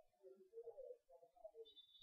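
Near silence: a faint murmur, with a brief high-pitched tone near the end.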